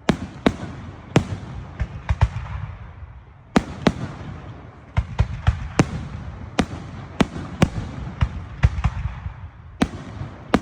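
Fireworks going off: an irregular series of sharp bangs, about two a second, with crackling in between.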